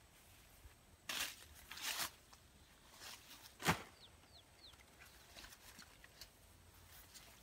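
Large leaves rustling twice as they are handled on a leaf-thatched roof, then a single sharp crack, the loudest sound, a little past halfway. Just after it come three faint, quick, high chirps that drop in pitch.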